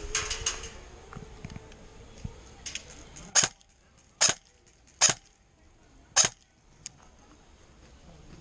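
Airsoft gun shots: a quick run of fainter pops at the start, then four sharp single cracks about a second apart and one small click after them.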